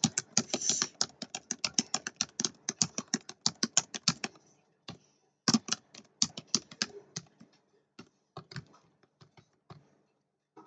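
Typing on a computer keyboard: a quick run of keystrokes for about four seconds, then slower, scattered key presses and clicks.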